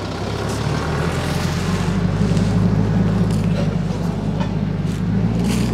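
Compact diesel tractor engine running steadily, its speed picking up a little about a second in.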